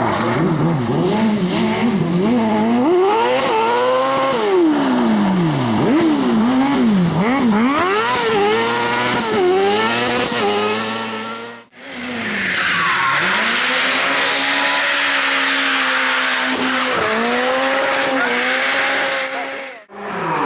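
Competition car engines at full effort in two edited clips: first an engine revving hard, its pitch sweeping up and dropping sharply with quick gear changes and lifts; after a sudden cut about twelve seconds in, a car runs at a steadier, high engine note under a loud hiss of tyre noise, with a brief lift near the end before another cut.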